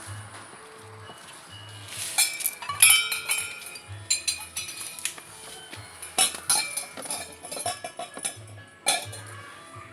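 Loose metal parts and tools clinking and clicking against each other while a telolet horn's trumpets are fitted, with the sharpest clinks bunched in the middle. Background music with a repeating bass line plays under it.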